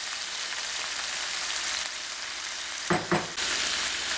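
Sliced onion, carrot, jalapeño and bell pepper sizzling steadily as they fry in oil in a pan. About three seconds in there are two quick knocks against the pan, and the sizzle is a little louder after them.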